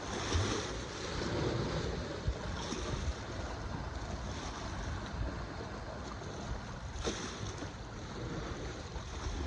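Sea water surging and washing with wind buffeting the microphone: a steady rushing noise with a few faint knocks.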